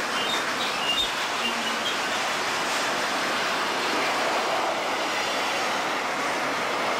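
Freight train's multilevel autorack cars rolling past close by: a steady rush of steel wheels on rail, with a single clack about a second in and a few faint short wheel squeals in the first second or so.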